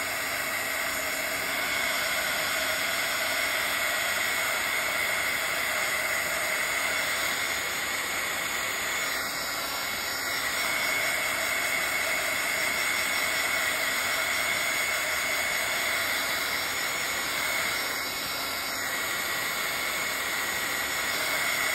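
Handheld craft heat tool blowing steadily: a constant hiss of hot air with a thin high whine, drying wet paint on a journal page.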